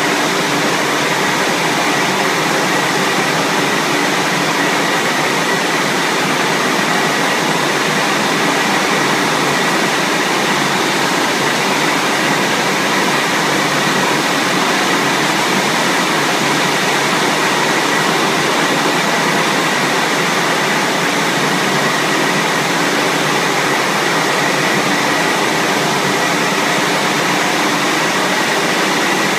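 LeisuWash RL-360 touch-free automatic car wash running its cycle over a car: a steady, loud rushing noise from its spraying or blowing gantry, with a thin steady high whine.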